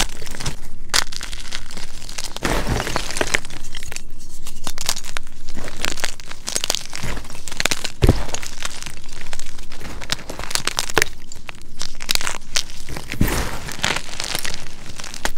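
Hands crushing and crumbling blocks of white chalk into chunks and powder: an irregular run of dry crunches and crackles, with a few louder sharp cracks as pieces break.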